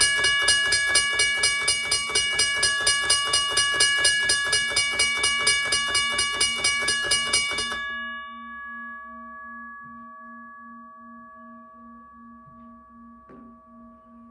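WABCO BA-10 motor-driven railway crossing bell ringing: the electric motor spins the hammer, a home-made bolt in an irrigation fitting, against the gong at about three strokes a second. About 8 seconds in the motor stops and the gong rings on, fading slowly, with a faint knock near the end.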